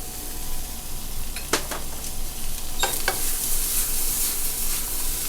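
Sliced onions sizzling in butter in a pan as they caramelize, with whole spices just added. A utensil stirring them gives a few sharp knocks about a second and a half in and again around three seconds.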